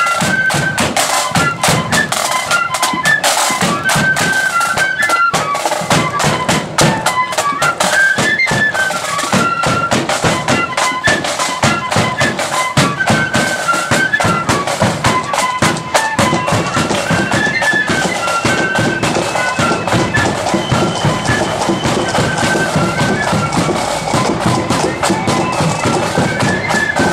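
Marching flute band playing a tune in unison. The flutes carry a high stepping melody over continuous side-drum beating and a bass drum.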